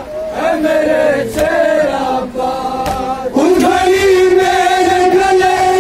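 A Shia noha (Urdu lament) sung by a man into a microphone, then taken up by a group of men chanting in unison, who hold a long, steady line from a little past halfway. A dull thump falls about every second and a half: the mourners' hands striking their chests in matam.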